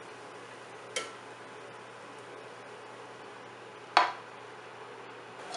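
Metal cooking utensils clinking: a light click about a second in, then a loud, sharp clank of a wire spider strainer against a wok about four seconds in, over a faint steady hiss.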